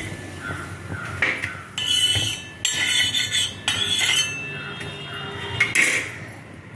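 Steel spatula scraping and clinking on a flat metal dosa tawa in several short strokes.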